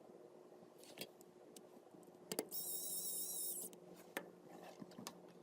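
Faint clicks from small laptop parts being handled, with a brief high-pitched wavering squeak about two and a half seconds in.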